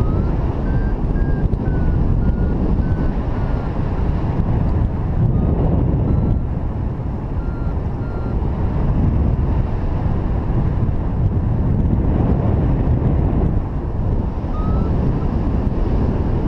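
Wind buffeting the microphone in paraglider flight, a steady low rush. Over it, faint short beeps of a flight variometer at shifting pitch come and go: through the first few seconds, again around the middle, and once near the end, the tone it gives when the glider is in rising air.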